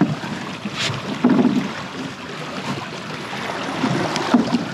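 Wind noise on the microphone over water moving against a drifting boat, with a few soft knocks.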